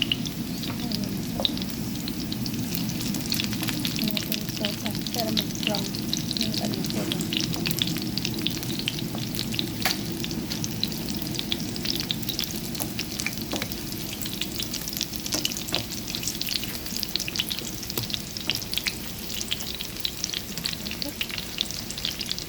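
Minced beef, pork and zucchini patties sizzling steadily in hot frying oil in a pan, with a constant spatter of sharp crackles.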